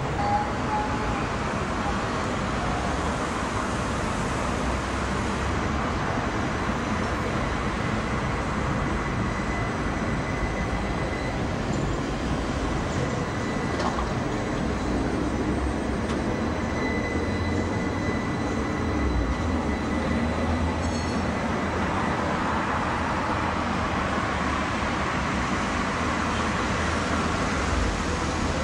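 Tatra KTNF6 trams running on street track, a steady rumble with a thin high whine that comes and goes twice in the middle, mixed with passing street traffic.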